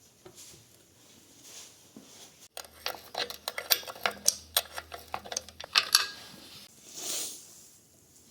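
A quick run of sharp metallic clicks and clinks from small metal parts or tools being handled, about a third of the way in through to about three-quarters, followed by a short hiss near the end.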